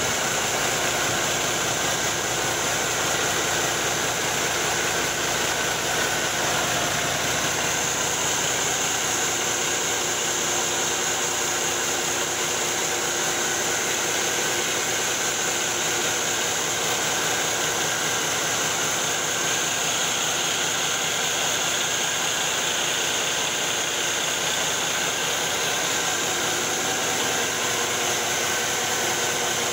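2015 Cummins ISX15 six-cylinder diesel engine idling steadily on a test stand, its speed unchanging.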